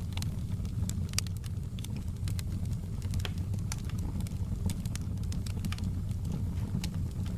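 Wood fire crackling in a fireplace: a low steady rumble with many sharp, irregular crackles and pops.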